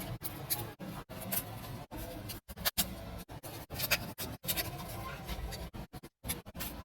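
Scratching and scraping of small hand tools working on a phone, with short clicks; the sound cuts out sharply again and again.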